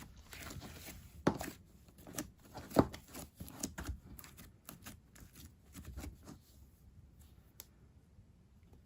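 Hands handling a jelly slime and its plastic container: a run of sharp clicks and crackly noises that dies away after about six and a half seconds.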